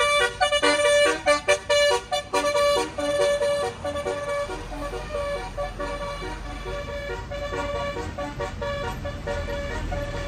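Tour bus's basuri telolet musical horn playing a quick melody of short, changing notes. The horn is loud for the first few seconds and fainter after about four seconds, with a low rumble growing underneath.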